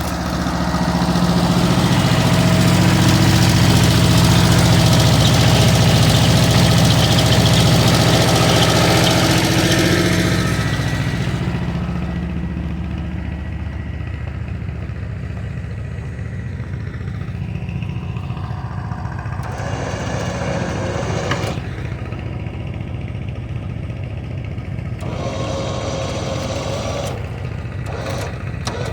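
An engine running hard for about the first ten seconds, then easing off to a lower, steady run, with a few short knocks later on.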